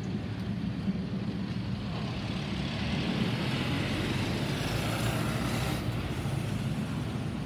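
Boeing 737-800's CFM56-7B jet engines heard as a steady low rumble as the airliner recedes overhead. A hiss swells from about two seconds in and stops suddenly near six seconds.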